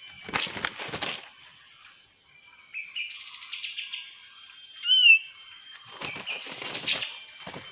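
Kapas tembak birds chattering in quick trilled notes, with one loud whistled note about five seconds in. Two bouts of wing fluttering and rustling come near the start and again towards the end.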